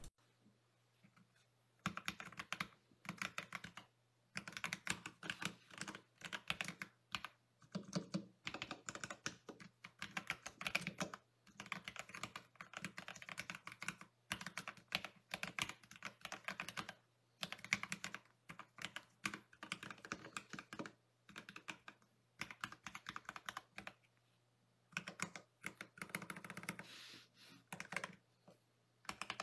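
Typing on a mechanical keyboard fitted with Akko CS Jelly Black linear switches and PBT keycaps, in an ID67 v2 board with foam and tape mods: runs of quick clacking keystrokes with brief pauses between them.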